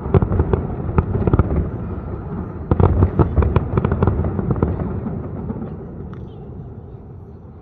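Fireworks display: a rapid string of bangs and crackles, densest about three seconds in, after which the booms die away into a fading rumble.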